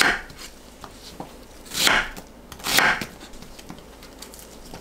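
Chef's knife slicing through an onion on a wooden cutting board: one slicing stroke at the start and two more about a second apart around two to three seconds in, with faint taps of the knife between.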